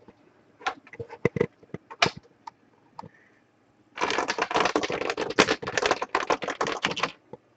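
A few scattered clicks, then about three seconds of rapid clicking like typing on a computer keyboard.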